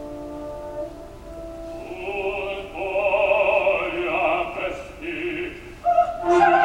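Opera with orchestra: held orchestral notes, then a baritone singing with a wide vibrato about two seconds in, and a mezzo-soprano coming in near the end.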